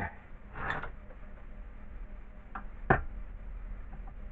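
A few sharp metallic clicks and knocks from the parts of an old air compressor being handled during its teardown, the loudest about three seconds in.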